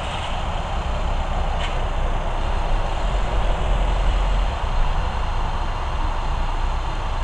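Steady background rumble and hiss, heaviest at the low end, with a faint click about one and a half seconds in.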